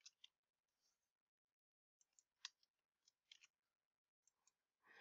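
Near silence with a few faint computer keyboard and mouse clicks, the clearest about halfway through.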